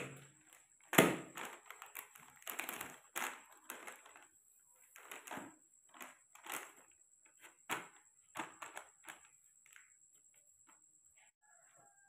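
Plastic being handled by hand: a quick run of clicks, taps and crinkles, with one sharp click about a second in, thinning out after about nine seconds.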